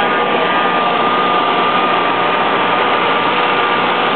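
Kohler 12RES 10 kW propane/natural gas standby generator running steadily, a constant high whine over its even engine noise.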